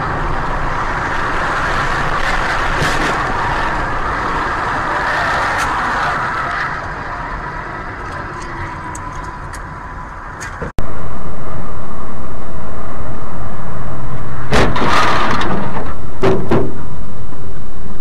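Steady road and engine noise of a moving car picked up by a dash camera, with a few scattered clicks. About eleven seconds in, it cuts abruptly to a much louder, distorted, steady rushing noise that swells twice near the end.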